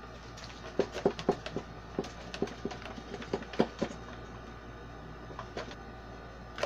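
Irregular clicks and light crackles of small objects and packaging being handled close to the microphone, busiest in the first few seconds, sparse in the middle, and picking up again at the end.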